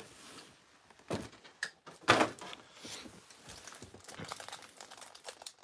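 Cardboard trading-card box and a cellophane-wrapped card pack being handled: a few light knocks and taps, the loudest about two seconds in, with faint rustling between.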